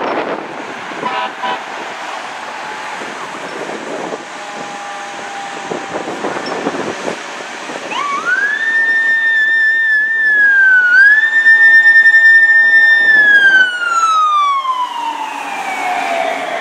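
Fire truck's siren winding up to a high steady wail about halfway through, dipping once, then slowly winding down in pitch as the truck passes. Before it, traffic and engine noise of the approaching truck.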